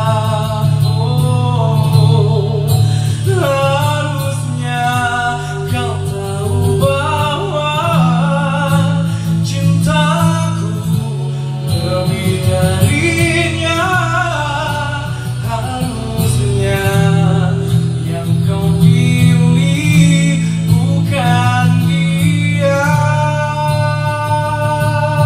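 A man singing an Indonesian pop song into a microphone over a backing track with guitar and a steady bass line.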